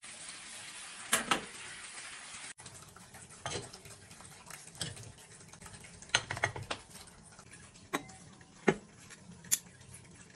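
Water running from a bathtub tap, breaking off about two and a half seconds in. Then comes a string of short, light clinks and knocks as a ceramic bowl, a glass cup and cutlery are set down on a metal bath tray.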